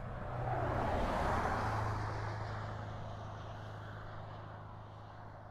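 A road vehicle driving past: its noise swells, peaks about a second in, then fades slowly, and its low engine hum drops in pitch as it goes by.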